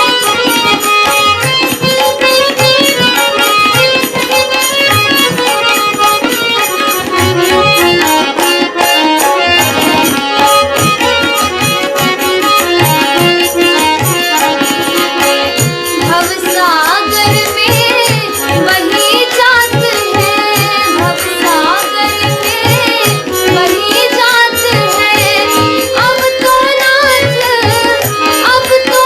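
Hindi devotional bhajan music with tabla keeping a steady rhythm under sustained melodic accompaniment. About halfway through, an ornamented melody line with sliding notes comes in.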